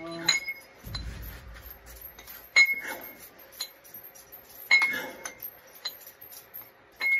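Cast-iron plates on plate-loaded dumbbells clinking with each rep: four sharp metallic clinks with a brief ring, about two seconds apart, with small rattles between them.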